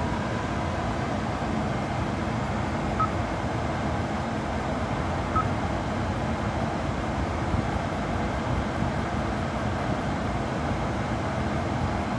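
Steady interior noise of a 2013 Hyundai Veloster running while parked, an even hum and hiss inside the cabin.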